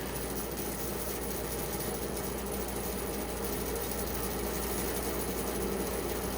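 Band saw running steadily with a low, even hum, not cutting.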